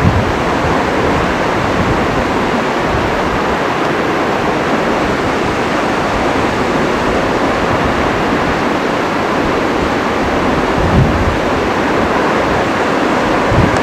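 Steady rushing of a large waterfall, Takakkaw Falls, heard close enough that the falling water fills the sound. A couple of brief low bumps come through late on.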